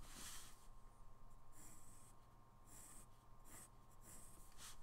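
HB graphite pencil drawing lines on paper: faint, with several short separate strokes.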